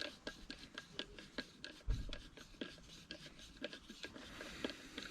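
Hand screwdriver turning a screw into the distributor cap's mounting, making faint irregular clicks and scraping as the tool works, with a soft thump about two seconds in.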